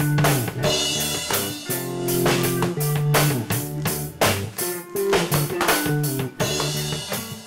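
Rock music from a guitar, bass and drum kit trio: lead guitar and bass notes over a steady drum beat.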